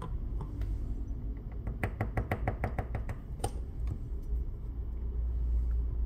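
An iPhone 15 being wiggled and tilted in the hands while its glued back cover is worked loose: a quick run of about eight light clicks, about six a second, then one more, over a low steady hum.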